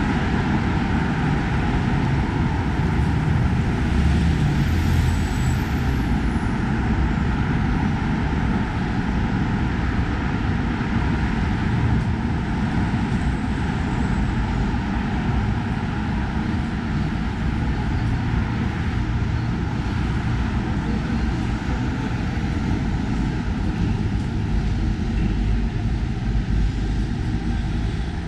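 Steady traffic noise on a busy city avenue: a continuous wash of passing cars and buses, heaviest in the low rumble.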